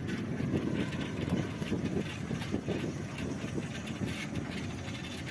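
Steady, gusty low rumble of wind buffeting the microphone, with road noise from a bicycle being ridden.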